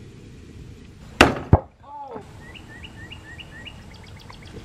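Basketball striking the hoop: two loud bangs about a third of a second apart, a little over a second in. Birds chirp in a quick repeated series afterwards.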